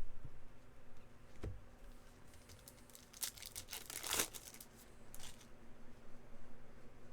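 Crinkling and rustling plastic as trading card packs and sleeves are handled, after a light knock about a second and a half in; the crinkling comes in a short cluster around the middle and once more shortly after.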